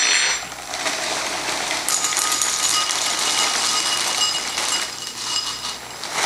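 Dry breakfast cereal poured from its box into a bowl: a steady rush of small pieces hitting the bowl, easing off near the end.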